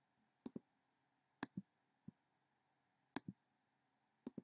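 Faint computer mouse clicks, about five of them, most in quick press-and-release pairs, against near silence.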